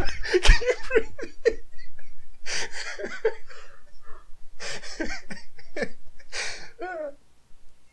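Two men laughing hard, in breathy, wheezing bursts with short gaps between them, one rising to a high wavering squeal near the end.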